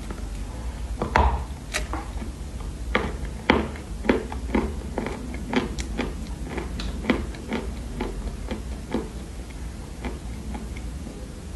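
Chunks of dried loess clay crunching as they are bitten and chewed close to the microphone: a run of sharp, crisp crunches, about two a second, thinning out near the end.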